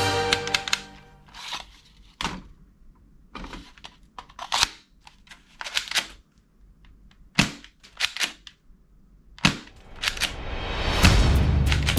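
Toy guns firing: about eight sharp single pops and clicks at uneven intervals. Music fades out at the start and comes back in near the end.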